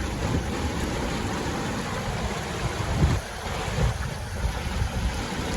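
Whitewater rapids rushing steadily, with wind buffeting the microphone in low thumps about three and four seconds in.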